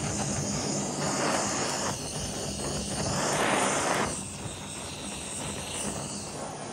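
Handheld gas blowtorch flame hissing steadily as it singes the skin of a raw whole chicken, swelling louder twice, about one second in and again about three seconds in.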